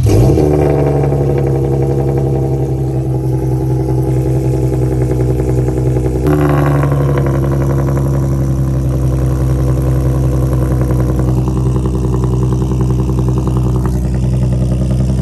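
Lexus IS350's 3.5-litre V6 running on its first startup with PPE headers and a muffler-less custom exhaust. The engine speed jumps right at the start and again about six seconds in, each time easing back to a steady idle.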